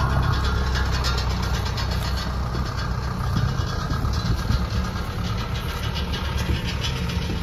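Vehicle engine running steadily with a low rumble and a light rattling clatter over it.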